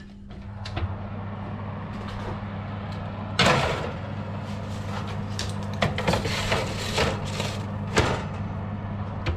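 Oven door opened and foil-covered metal baking trays slid onto the oven's wire racks: scraping and clanking of metal on metal over a steady hum. The loudest clank comes about three and a half seconds in, with more knocks after six seconds and one near eight seconds.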